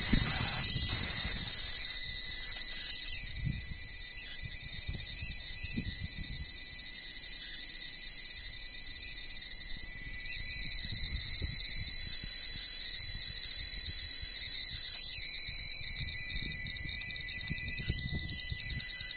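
Spark gap of a homemade high-voltage coil circuit firing continuously: a steady hissing sizzle with a high-pitched whine running under it.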